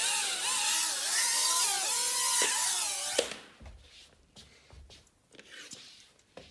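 Hubsan H107C+ mini quadcopter hovering, its four small motors and propellers giving a high whine that wavers in pitch as the motors adjust. The whine cuts off suddenly a little after three seconds in.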